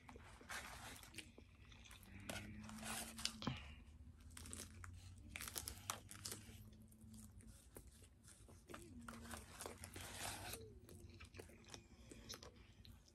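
Close-up eating sounds: a crispy fried chicken sandwich being bitten into and chewed, with irregular crunches and wet mouth clicks.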